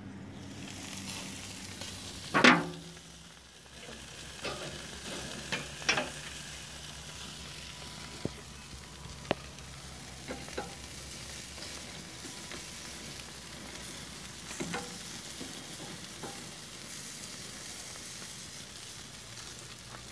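Meat sizzling on a barbecue grill over an open flame, a steady hiss with scattered small pops and clicks. A single loud clank comes about two and a half seconds in.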